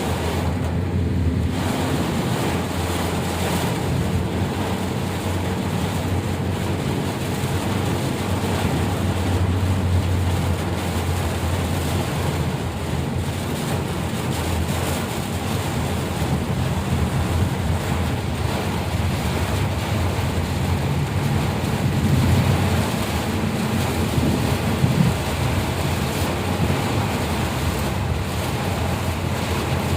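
Steady rush of heavy rain, with a low engine hum running underneath.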